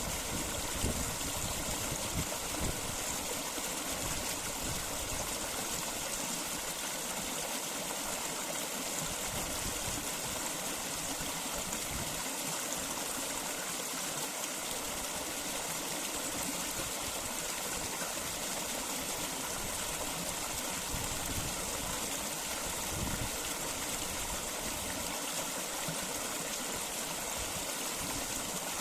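Flowing stream water: a steady, even rush.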